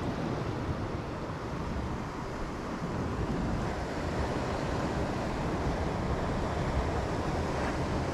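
Sea waves washing against rocks, with steady wind noise on the microphone.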